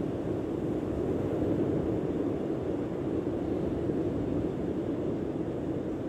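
Steady rushing noise of sea surf, with no distinct wave crash standing out.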